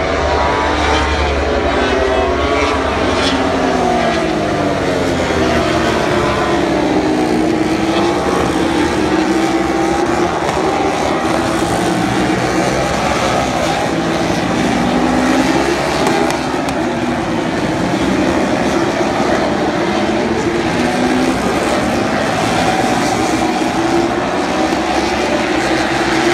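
A pack of MotoGP racing motorcycles passing at speed. Several engines overlap without a break, each rising and falling in pitch as the riders accelerate, shift and brake through the corners.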